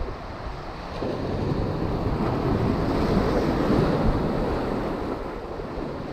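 Ocean surf washing in over shoreline rocks, swelling about a second in and easing off again near the end, with wind buffeting the microphone.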